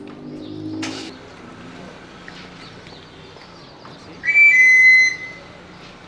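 A knife sharpener's pan-pipe whistle blown in a quick run of high notes lasting about a second, some four seconds in. Before it, in the first second, a low hum and a sharp click.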